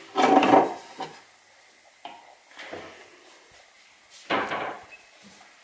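Kitchen handling noises: a few separate knocks and clatters of things being moved, like a drawer, cupboard or dishes, the loudest just after the start and again about four seconds in.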